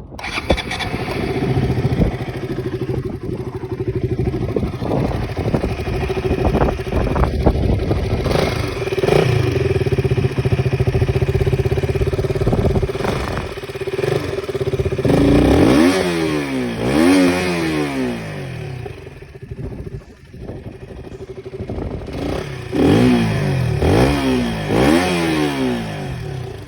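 KTM RC 200's single-cylinder engine idling steadily through its exhaust, then blipped three times in quick succession, and after a short pause blipped three more times near the end, each rev rising and falling back to idle.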